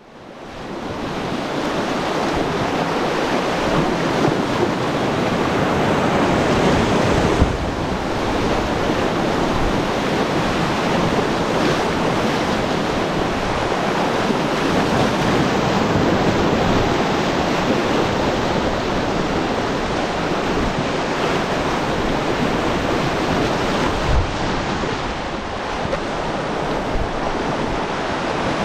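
Whitewater river rushing steadily.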